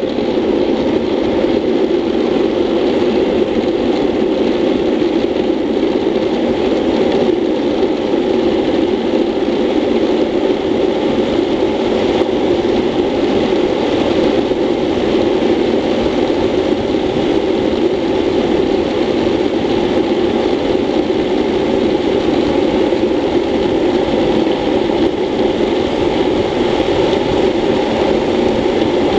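Steady rushing roar of wind buffeting a helmet-mounted camera, mixed with the hum of urethane wheels rolling on asphalt, as a classic luge (buttboard) runs fast down a straight road.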